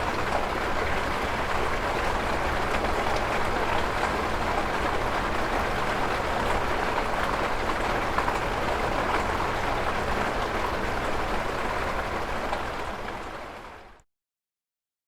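Hail hitting a window pane: a dense, steady rush of many small sharp ticks. It fades out near the end and then stops.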